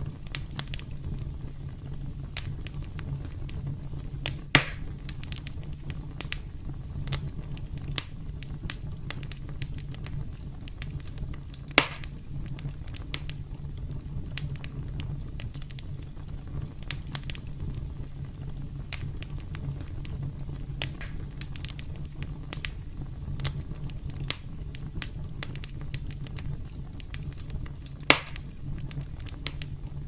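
Campfire crackling: a steady low rumble of burning wood under a constant scatter of small pops and snaps, with three sharper, louder pops, about four seconds in, about twelve seconds in, and near the end.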